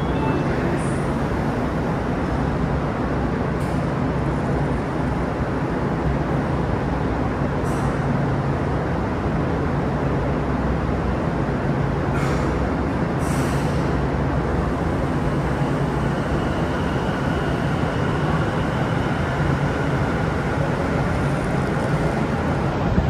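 Tokyu 5050-series electric train in an underground station: a steady low hum while it stands, a hiss of air about halfway through, then the traction motors whining faintly as it pulls away from the platform.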